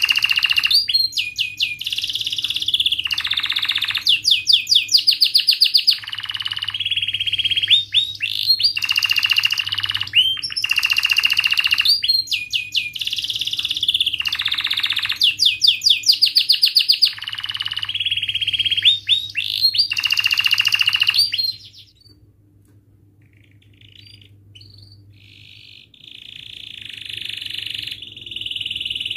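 Domestic canary singing loudly: fast rolled trills and rapid chirping phrases repeated over and over. About three quarters of the way through it pauses with only a few soft notes, then picks up again with a held rolling trill near the end.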